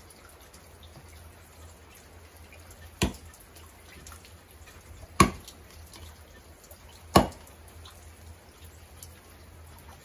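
Three axe blows striking wood, about two seconds apart, the last two the loudest, over steady dripping rain.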